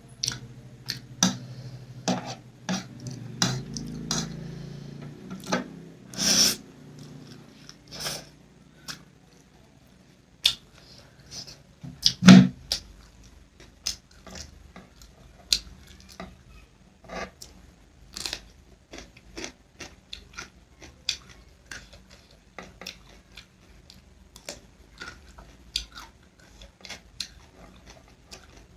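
Eating sounds: utensils clicking and tapping against dishware, mixed with chewing, with one louder knock about twelve seconds in.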